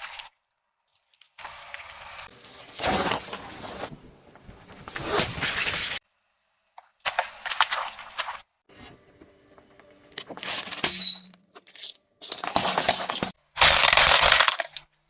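Objects cracking and breaking as they are crushed under a car's tyre, in several short bursts that cut off suddenly into silence.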